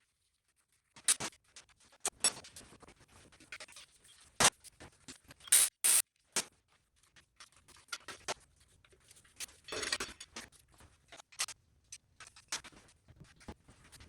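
Irregular metallic clicks, clinks and knocks of hand tools and engine parts being handled while connecting rod assemblies are taken out of an LT1 small-block V8, with a short scrape about ten seconds in.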